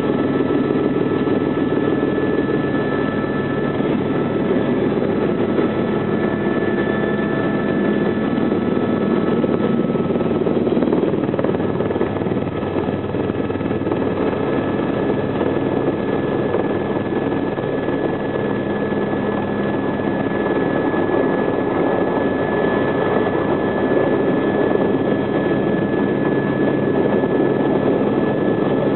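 Helicopter engine and rotor heard from inside the cabin, a steady drone with a thin, even high whine over it, as the helicopter comes in low to land.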